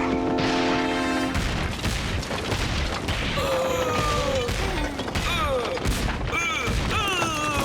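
Cartoon soundtrack: a held musical chord, then from about a second and a half in a rapid, dense clatter of crashes and bangs, joined about halfway through by wavering, gliding high-pitched sounds.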